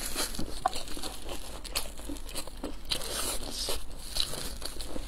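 Close-miked eating of a pan-fried stuffed flatbread (xianbing): a bite into it, then chewing, with many short crackly crunches from the crisp fried crust.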